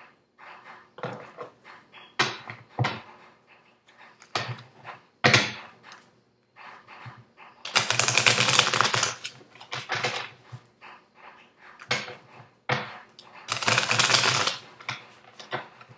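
Tarot cards picked up and tapped against a wooden table in a string of short clicks, then a deck of cards shuffled in the hands in two longer, louder bursts, about halfway through and again near the end.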